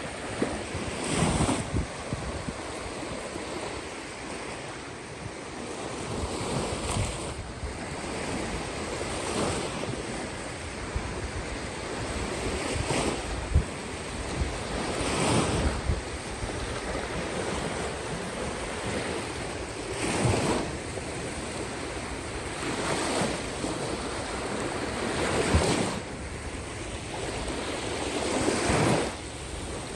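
Waves of the Caspian Sea breaking on the shore: a steady wash of surf that surges every few seconds as each wave comes in, with wind on the microphone.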